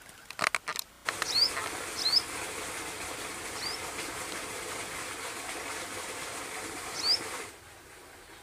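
A small bird chirping four times in short, high, rising chirps over a steady hiss that starts and stops suddenly, with a quick run of clicks just before.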